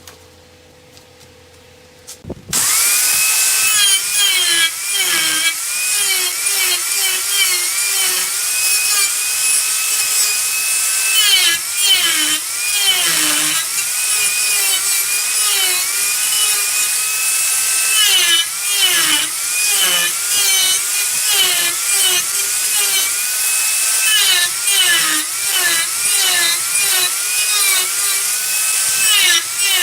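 Wood lathe starting up about two and a half seconds in, then a turning tool cutting into the spinning wood with a hissing scrape. The lathe's whine dips in pitch again and again as the cuts load it.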